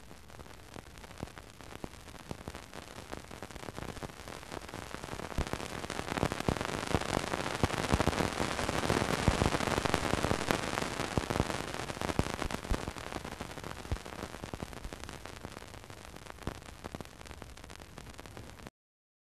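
Saturn's radio emissions recorded by the Cassini spacecraft and played back as sound: a crackling static hiss full of clicks. It swells to its loudest about halfway through, fades again, and cuts off suddenly near the end.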